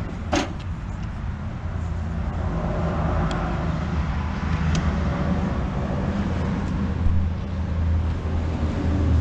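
A steady, low engine hum with traffic noise, and a sharp click about half a second in.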